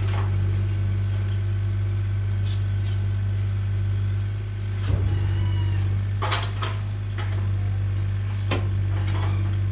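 Split firewood knocking and clattering as pieces are set on a stack, about half a dozen separate knocks, over a steady low hum.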